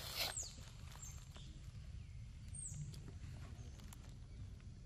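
Faint rustle and crackle of dry leaves as a macaque feeds on mango in the leaf litter: a brief rustle right at the start, then scattered small clicks. A bird's high whistle, falling in pitch, repeats every second or so.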